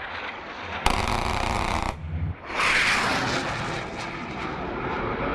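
Military jet's cannon firing one burst of about a second, a sudden continuous ripping sound that cuts off sharply. About two and a half seconds in, a loud rushing jet roar rises and slowly fades.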